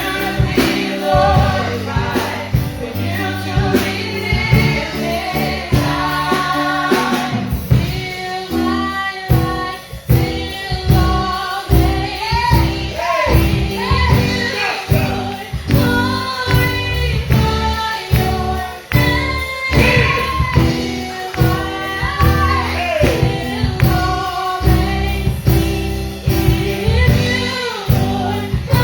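Gospel worship music: voices singing over a band with a steady beat.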